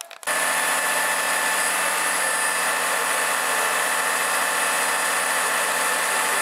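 Fire engine running steadily: a loud, even mechanical drone with a steady whine laid over it, cutting in suddenly just after the start.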